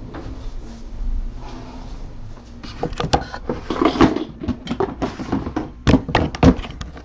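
Camera and microphone handling noise: a run of knocks, bumps and rubbing that starts nearly three seconds in as the camera is moved, with the loudest knocks around four and six seconds, over a low steady hum.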